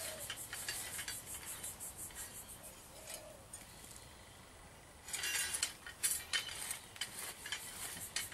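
Hand auger post hole digger being twisted into garden soil and mulch: the steel blade scrapes and crunches through the earth in quick gritty strokes. It eases off between about one and a half and five seconds in, then resumes more strongly.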